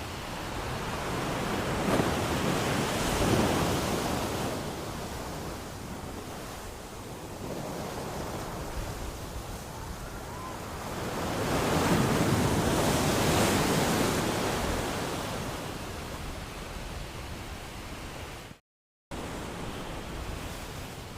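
Ocean waves washing in, two slow surges that swell and fade. Near the end the sound cuts out to silence for about half a second, then resumes.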